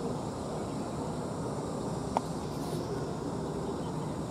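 Steady low rumble of distant outdoor background noise, with one short sharp click about two seconds in.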